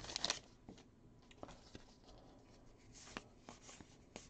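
Faint handling of Topps Heritage baseball cards: soft rustles and light ticks as the cardboard cards slide and flick against each other while being sorted by hand, with a brief louder rustle at the very start.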